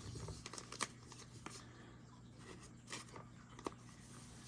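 Trading cards being handled and slid against one another, with a few faint sharp clicks scattered through, over a low steady hum.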